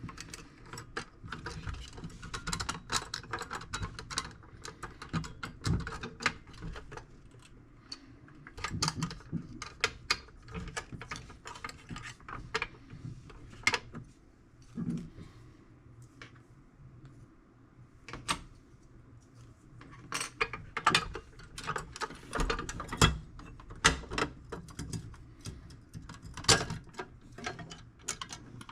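Irregular clicking, tapping and clinking of hand tools and parts working on a tool box, with denser runs of clicks near the middle and in the last third.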